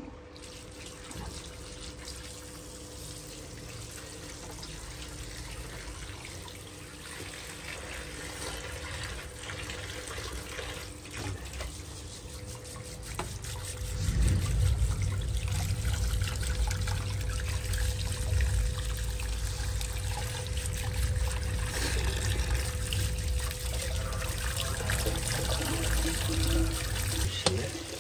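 Tap water running into a stainless-steel bowl as green grapes are rinsed and swished by hand. The splashing gets louder and fuller about halfway through.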